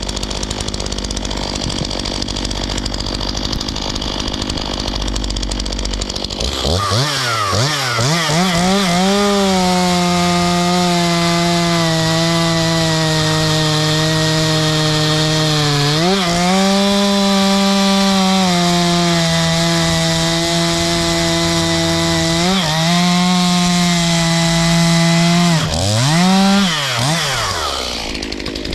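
Stihl MS 251 45 cc two-stroke chainsaw running while cutting ash firewood. For about six seconds there is a steady noisy rasp. Then the engine note comes through clearly, swinging up and down before settling to a steady pitch that dips briefly twice, and it swings up and down again near the end.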